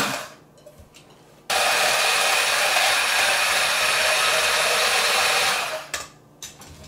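ELECHOMES 500-watt immersion blender with its whisk attachment running steadily, beating eggs in a plastic beaker. It starts about a second and a half in, runs for about four seconds, and stops near the end, with a few light ticks after.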